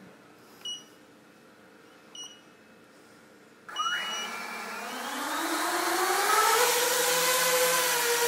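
Three short electronic beeps about a second and a half apart. A JME quadcopter drone's motors then start, their whine rising in pitch over about three seconds as they spin up, and settle into a steady, loud drone hum.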